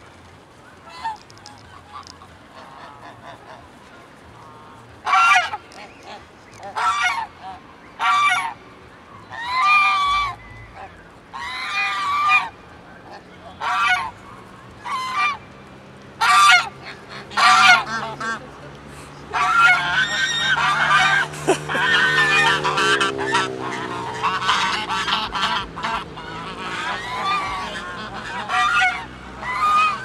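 Domestic geese honking. After a quiet opening, loud single honks come about once a second. About two-thirds of the way through, several geese join in a dense run of overlapping honks.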